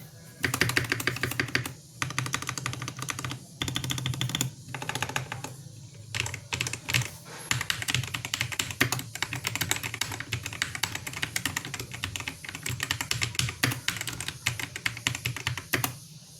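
Fast typing on a VortexSeries Mono 65% mechanical keyboard with a plastic case: a dense clatter of keystrokes broken by a few short pauses.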